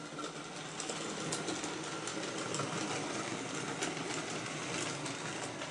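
Model railway locomotive running along the track: a steady hum of its small electric motor, with faint irregular clicks from the wheels on the rails.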